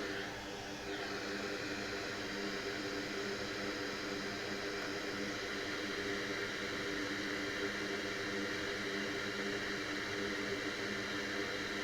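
Steady whir and hiss of a small electric fan running, with a low steady hum under it.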